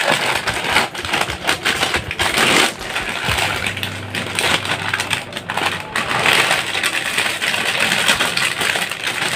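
Metallised foil snack packet crinkling as it is snipped open with scissors and handled, then puffed snacks tipped out and clattering onto a steel plate near the end.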